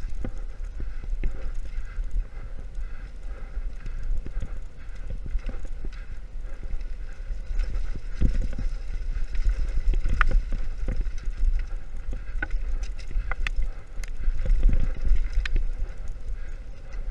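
Mountain bike clattering over a rough dirt trail on a fast descent, with many sharp knocks from bumps, heaviest in the middle and near the end, over a steady low rumble of wind on the camera microphone.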